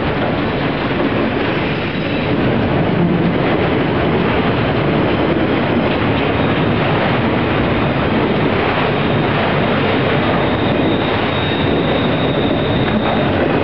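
Freight train's autorack cars rolling past at speed: a steady loud rumble and rattle of steel wheels on the rails. A faint high-pitched wheel squeal comes in for a couple of seconds near the end.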